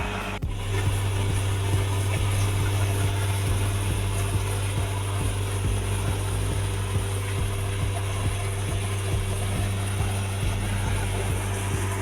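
A vehicle driving along a road: steady engine hum with road and tyre noise and some rattling. The sound briefly cuts out about half a second in.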